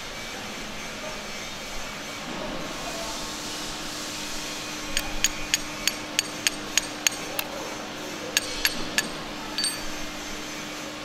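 Metal lathe change gears and a steel shaft clicking together as they are handled: a run of about nine sharp metallic clicks, three or four a second, about halfway in, then a few more spaced clicks, over a steady faint hum and hiss.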